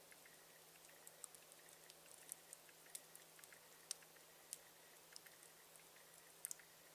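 Campfire crackling: irregular sharp pops and snaps of burning wood, a few louder ones about four seconds in and near the end.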